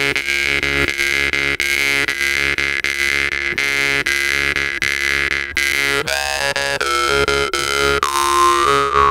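Large bass jew's harp with a 50 Hz base tone, played with quick rhythmic plucks over a deep buzzing drone. A bright, whistling overtone is held steady, then shifts in pitch about six seconds in and again near the end.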